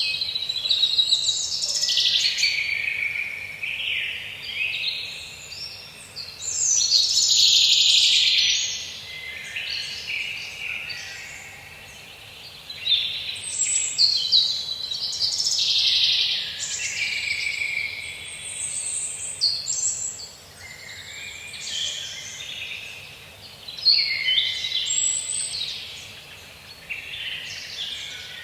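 Songbirds singing in a forest, with overlapping phrases every second or two over a faint steady background hiss.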